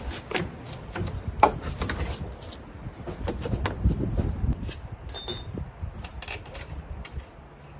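Scattered metal clinks, knocks and rubbing as an A/C compressor is forced into place on its mount and its bolts are started, with one louder knock about a second and a half in and a brief high metallic ring about five seconds in.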